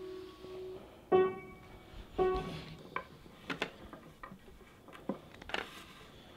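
A piano note dies away, then two more single notes are struck about a second apart. Light clicks and knocks follow.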